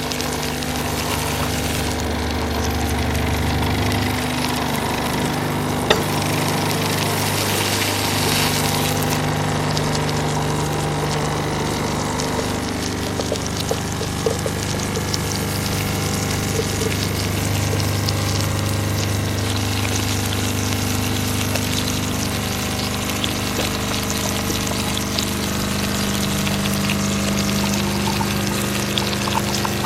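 Mackerel frying in hot oil: a steady sizzle with occasional pops. Under it runs a low hum that shifts to a new pitch every few seconds.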